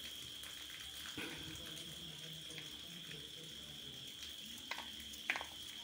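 Kitchen knife chopping garlic cloves on a plastic plate: faint scattered taps, with two sharper knocks near the end, over a steady high-pitched hiss.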